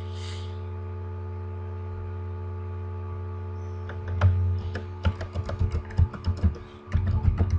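Steady electrical hum, then about four seconds in irregular clicking of computer keys begins, like someone starting to type.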